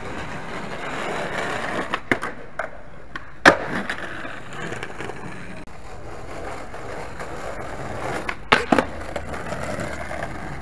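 Skateboard wheels rolling over concrete pavement, with sharp clacks of the board striking the ground. The loudest clack comes about three and a half seconds in, and a quick pair of clacks follows about eight and a half seconds in.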